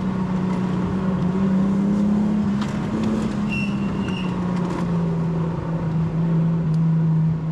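Nissan Skyline GTT's twin-turbo RB25DETT Neo inline-six running at a steady, moderate pitch from inside the car, rising slightly and then easing off. A brief high squeal about three and a half seconds in.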